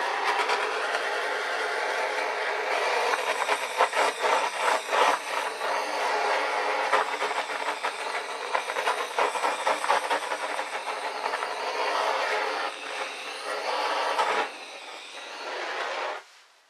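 Handheld gas torch burning with a steady rushing flame, played over a wet acrylic pour. It drops to a lower level a couple of seconds before the end and is then shut off.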